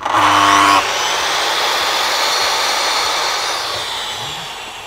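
Sliding mitre saw (chop saw) starting up with a rising whine, then its blade cutting through an oak cladding board; the sound fades gradually near the end as the blade spins down.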